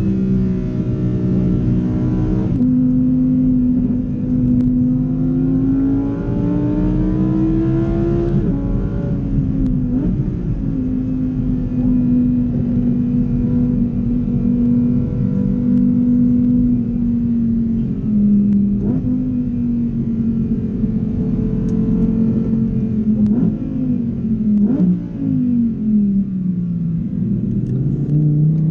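Lamborghini Huracán Evo's naturally aspirated V10, heard from inside the cabin under way. The revs climb, drop sharply about nine seconds in as it changes up a gear, then hold steady while cruising. They fall away again and pick back up near the end.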